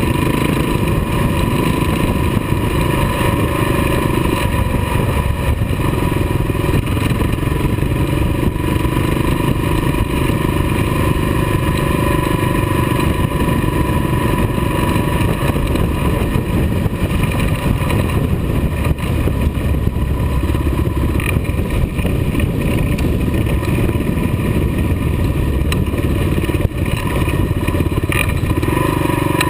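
Kawasaki KLR dual-sport motorcycle's single-cylinder four-stroke engine running steadily at cruising speed, heard close up from a camera mounted on the bike, with wind noise and the rumble of tyres on a gravel road.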